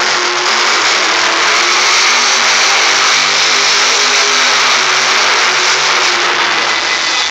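Monster truck's supercharged V8 engine revving hard and held high as the truck spins donuts, a steady loud blare that echoes through a large arena.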